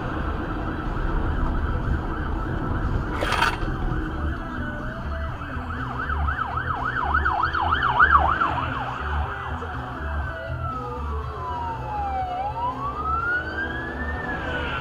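Police car sirens passing: a fast yelp, rising and falling about three times a second, in the middle of the stretch, then a slower wail that falls and rises again near the end, over a low steady rumble. A single short sharp knock about three seconds in.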